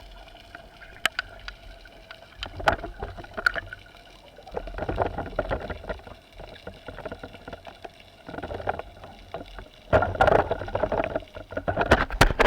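Water sloshing and splashing around the camera in irregular bursts with small clicks, over a faint steady hum.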